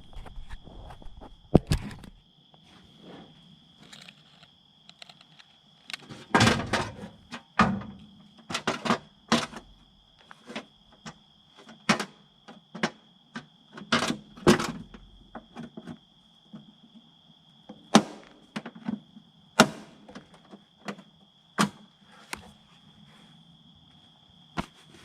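Irregular sharp knocks and clicks, a few of them loud, scattered over a steady high trill of crickets.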